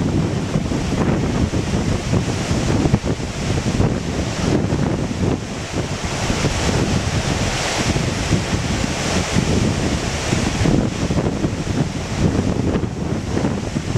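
Loud, steady rush of whitewater rapids, with wind buffeting the microphone.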